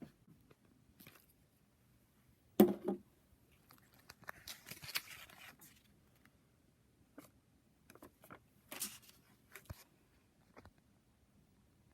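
Handling noise from plastic LEGO models: a sharp knock about two and a half seconds in, then rustling, scraping and scattered small clicks.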